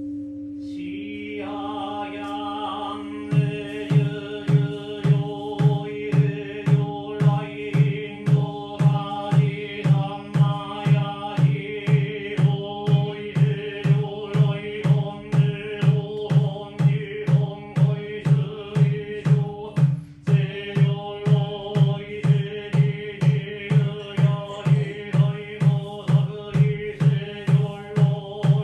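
Buddhist sutra chanting, a steady near-monotone voice, joined about three seconds in by a drum beaten in a regular rhythm about twice a second. The ringing tone of a struck bowl bell fades out as the chant begins.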